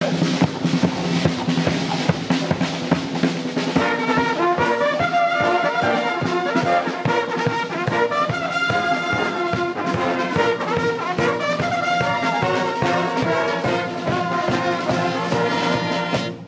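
Military band of brass, bugles and drums playing. For about the first four seconds it is mostly drum beats under held low brass notes, then the brass melody comes in over a steady drum beat.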